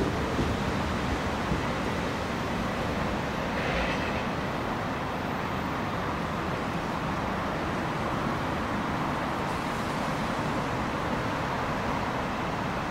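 Steady rolling rumble of a train running past on the rails.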